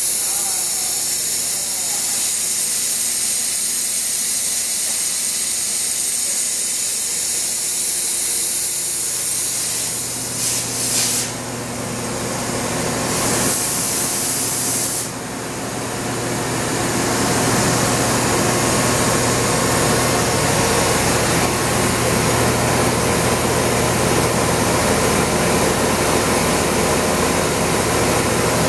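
Steady machine-shop background noise, a continuous hiss with a low hum. Two short bursts of louder hissing, like compressed air, come about ten and thirteen seconds in.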